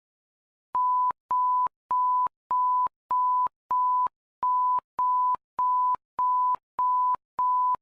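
Electronic alert beep: one steady pure tone repeated twelve times at an even pace, a little under two beeps a second. It starts about a second in and serves as the attention signal of a mock emergency alert broadcast.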